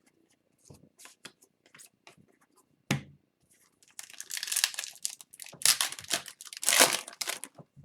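A foil trading-card pack wrapper being torn open and crinkled, after a few seconds of light taps from handling cards and one sharp knock just before the three-second mark.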